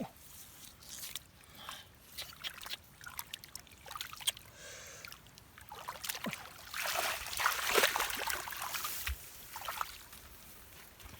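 Splashing and sloshing in shallow muddy water, in short irregular splashes, with a longer, louder stretch of splashing about seven to eight and a half seconds in.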